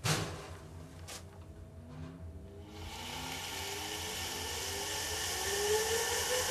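Agni brushed DC motor spinning up from standstill with no load on a low-voltage supply. A click as power goes on and another about a second later, then a whine that climbs steadily in pitch while a hiss grows louder.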